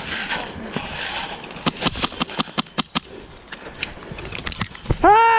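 Rustling footsteps, then a rapid string of sharp cracks of airsoft gunfire about two seconds in. Near the end comes a loud single shout that rises and falls in pitch, the loudest sound here.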